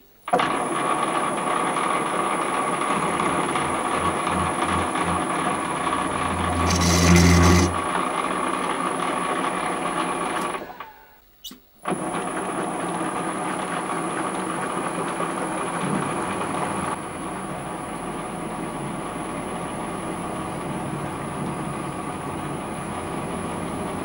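TV-7M school lathe running with a countersink in its spindle, cutting a chamfer into a metal bar held in a milling-attachment vise: a steady machine hum with a high whine, growing louder and rougher for about a second near 7 s in. It cuts out about ten seconds in and starts again a second later.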